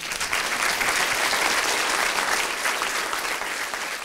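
Audience applauding, many hands clapping together, easing off slightly near the end.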